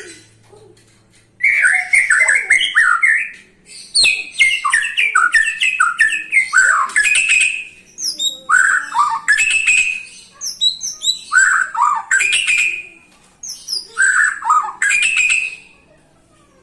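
White-rumped shama singing: rich, varied phrases of quick whistles, falling glides and chattering notes in five bursts of about two to four seconds each, with short pauses between them. This is the kind of song used as a lure to get a silent shama singing.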